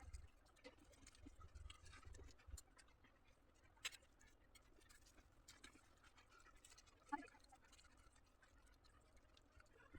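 Faint, quiet eating sounds: scattered soft scratches and clicks, with a sharper click about four seconds in and another about seven seconds in.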